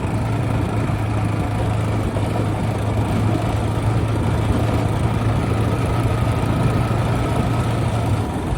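Motorcycle engine running steadily under way, a low even hum over road and wind noise. The hum drops away just before the end.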